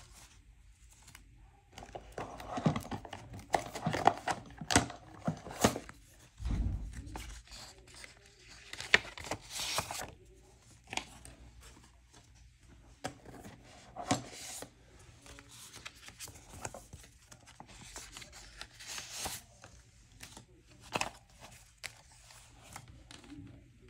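Paper banknotes and envelopes handled and counted by hand: irregular rustling, crinkling and crisp flicks of paper, coming in busy spells with quieter gaps. A soft low bump about six and a half seconds in.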